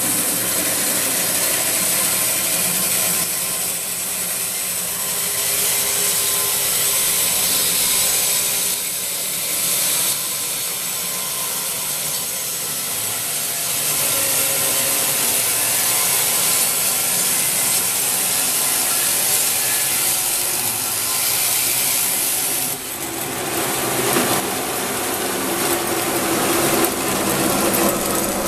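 MCA 600 portable band sawmill, driven by a 15 hp electric motor, running its bimetal band blade through a log in a steady sawing cut with a strong hiss. About three-quarters of the way through, the sound briefly dips and then changes character.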